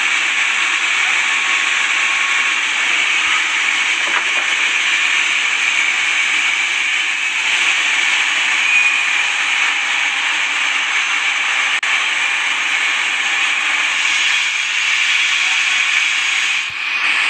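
Steady, loud hissing noise with no clear pitch or rhythm, dipping briefly near the end.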